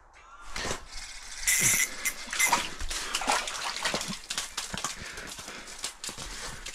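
A freshly landed trout flopping and thrashing on wet, slushy ice and snow beside the fishing hole, grabbed at by a gloved hand. It makes a run of irregular wet slaps, splashes and scrapes, the loudest a little over a second in and again about two and a half seconds in.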